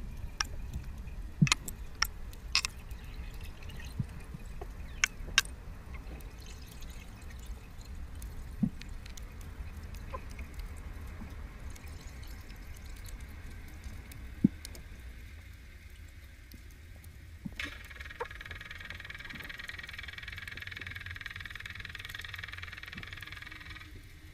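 Underwater sound from a diver's camera housing during a weighted freedive descent: a steady low rumble of water moving past, with scattered sharp clicks, mostly in the first half. About two-thirds of the way through, a steady hiss sets in suddenly and stops just before the end.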